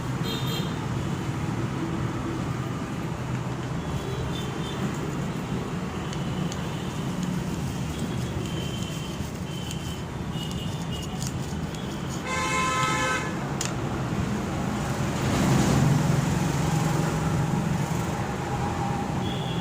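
Road traffic rumbling steadily, with a vehicle horn sounding once, briefly, about two-thirds of the way through, and a louder vehicle passing soon after.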